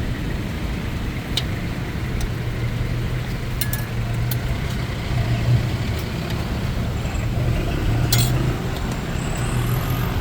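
Steady low hum of a running motor vehicle engine, with a few short sharp clicks and taps scattered through it.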